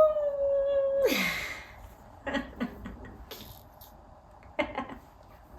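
A woman's voice holding one drawn-out note for about a second, falling away at the end, followed by a breathy rush and scattered soft taps and rustles.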